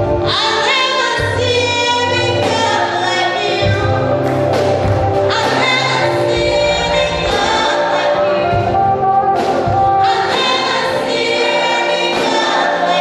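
Live gospel worship song: a woman singing lead through a handheld microphone, with a choir of backing singers and instrumental accompaniment holding steady low notes underneath.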